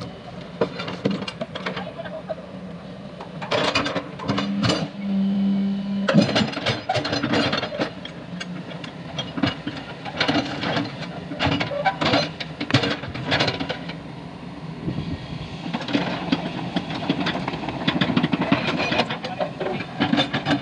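Crawler excavator's diesel engine running steadily while its steel bucket scrapes and knocks against slabs of broken asphalt, breaking up and lifting the old road surface.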